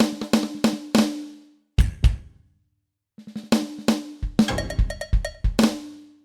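Yamaha DTX700K electronic drum kit played in quick fills of snare, tom and kick strikes, with a pitched ring under the hits. The playing stops for about a second midway, then resumes with a fast run of strikes.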